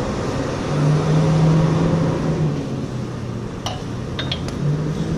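A steady low machine hum that swells about a second in and again near the end, with a few light metallic clinks between three and a half and four and a half seconds in as hydraulic hoses and their fittings are handled against a steel front-hitch frame.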